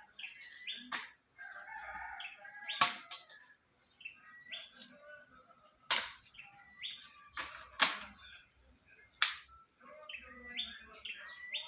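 A wild bird repeating a short call that steps up in pitch, the phrase heard as "Jo-ko-wi", several times. Five sharp, loud snaps fall between the calls and are louder than them.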